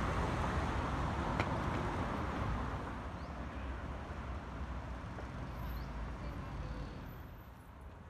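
Street traffic noise: a steady low rumble of passing vehicles that grows quieter over the second half, with a single sharp click about a second and a half in.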